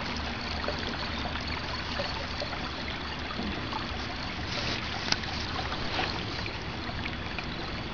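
Water trickling and lapping around a kayak being paddled on calm river water, with scattered small ticks and one sharper click about five seconds in.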